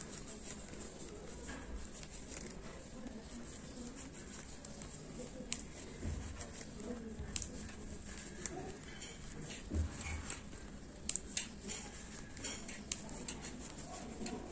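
Faint rustling of yarn and small scattered clicks from a 3 mm crochet hook being worked by hand through double crochet stitches, with a few soft thumps, over a steady hiss.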